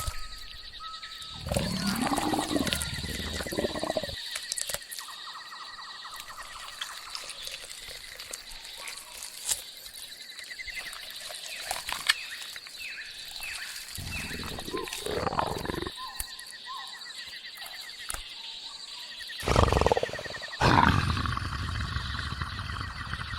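A large wild animal roaring and growling in three bouts: a low, wavering call near the start, another about two-thirds of the way in, and the loudest near the end. Underneath runs a steady high jungle insect drone, one tone of it pulsing.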